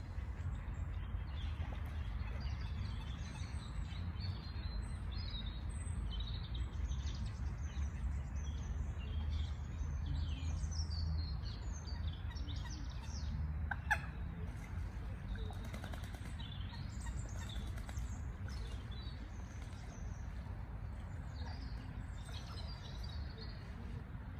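Small birds chirping and twittering over and over, over a steady low background rumble. A single short, sharp sound stands out about fourteen seconds in.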